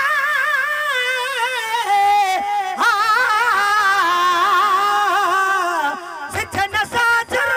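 A solo male voice singing a Sindhi devotional song into a microphone, holding long wavering notes with heavy vibrato; near the end the long line breaks into a few short, choppy bursts.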